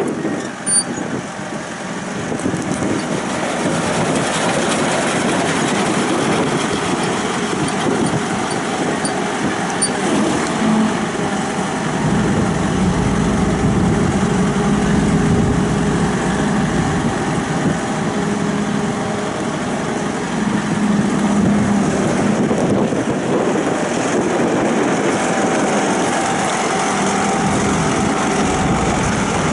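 CAT diesel engine of a Challenger SP115B self-propelled swather running steadily as the machine drives slowly across a gravel lot, with a deeper rumble coming in about twelve seconds in.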